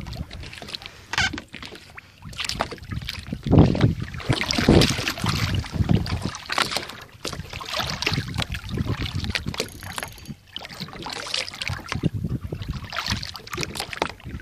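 Seawater sloshing and splashing against the side of a boat as a small shark is held in the water and released, with wind gusting on the microphone.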